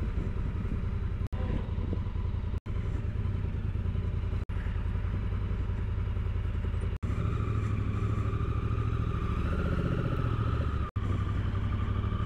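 Motorcycle engine running at idle and low speed, a steady low rhythmic pulse that cuts out briefly five times. From about seven seconds in it runs a little louder, with a faint whine on top.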